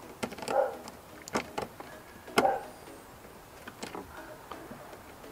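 Screwdriver turning a very tight screw out of a plastic car door panel under the door handle: irregular clicks and knocks, the loudest two about half a second and two and a half seconds in.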